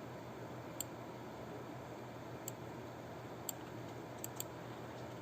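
Computer mouse clicking through menus: five sharp, separate clicks, the last two in quick succession like a double-click, over a faint steady hiss and low hum.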